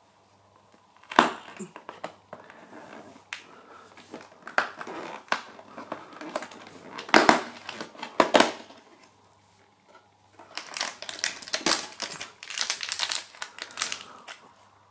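Fingers pushing in and tearing open a cardboard advent-calendar door, with scattered snaps and scrapes. About ten seconds in, the plastic wrapper of a mini bag of HARIBO sweets crinkles as the bag is pulled out of the compartment.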